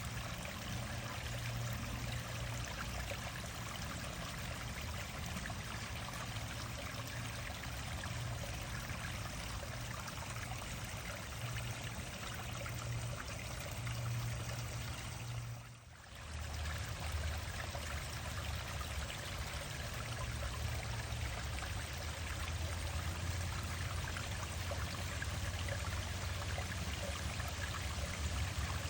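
Stream water running and splashing steadily over a small waterfall; the sound briefly drops away and returns a little over halfway through.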